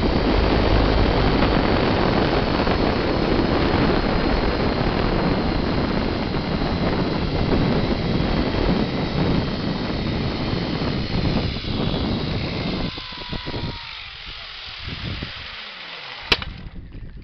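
Zipline trolley running fast down the steel cable with wind rushing over the microphone. The rush fades as the rider slows near the end, with a faint whine dropping in pitch. Then a single sharp metallic clack as the trolley strikes the spring brake at the landing.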